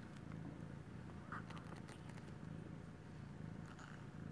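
A cat purring faintly in a pulsing rhythm that comes and goes with its breaths, with a few small clicks and rustles.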